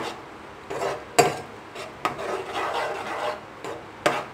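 Steel spoon scraping and knocking against a non-stick pan while stirring a thin onion-and-chilli sauce. Sharp knocks come at the start, about a second in and near the end, with rasping scrapes between them.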